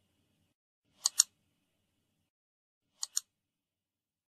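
Two quick double clicks, sharp and short, about two seconds apart, the second pair softer than the first.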